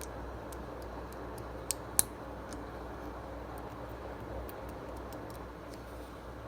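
Lego bricks clicking as they are handled and pressed together: scattered small sharp plastic clicks, two louder snaps about two seconds in, over a steady low background hum.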